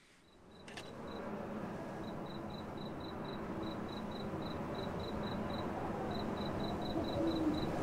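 A cricket chirping in short, high, evenly spaced pips, about four a second with one short pause, over a steady low background of the night forest.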